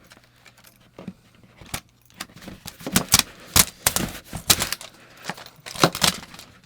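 A bunch of keys jangling and scraping against plastic toy packaging as they are used to try to cut it open. Irregular sharp clicks and rattles, sparse at first and coming thick and fast from about two seconds in.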